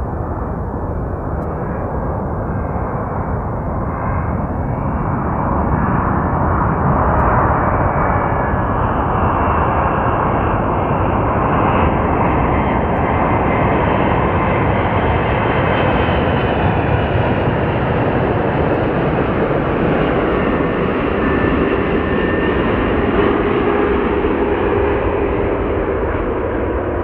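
Twin-engine Boeing 777 jet engines on final approach: a steady rushing noise that grows louder about six seconds in and holds, with faint tones gliding down in pitch near the end as the airliner passes toward touchdown.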